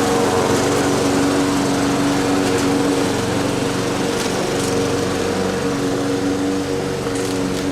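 Walk-behind lawn mower's small engine running steadily while cutting grass.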